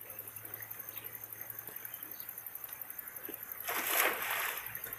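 A splash of creek water a little under a second long, about four seconds in, as a fishing net is swung into the water. Behind it, insects chirr steadily with a fast pulse.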